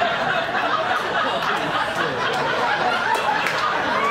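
Audience laughing together, a dense steady wash of many people's laughter.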